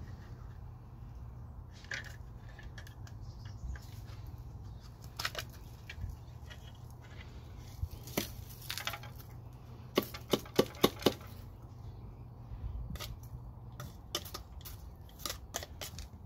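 Hard plastic parts of a Rescue reusable wasp trap clicking and knocking as the trap is taken apart and emptied of dead wasps, with a quick run of about five sharp taps near the middle.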